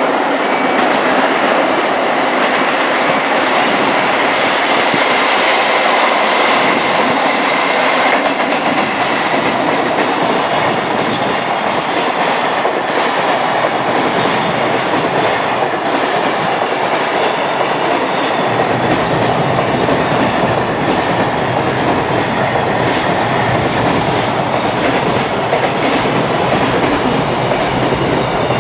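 Freight train passing at speed, its wheels clicking steadily over rail joints with a continuous rumble that deepens about two-thirds of the way through.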